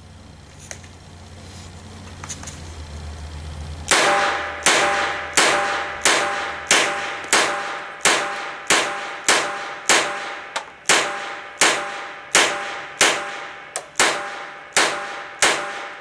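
Glock 17 9 mm pistol firing a steady string of about seventeen shots, roughly one every two-thirds of a second, beginning about four seconds in. Each shot is followed by a short metallic ring.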